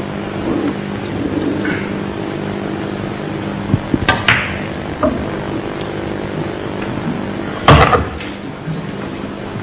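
Pool shot on a nine-ball table: the cue tip strikes the cue ball about four seconds in, followed by sharp clacks of balls hitting each other, and a heavier thud near the end, over a steady low hum.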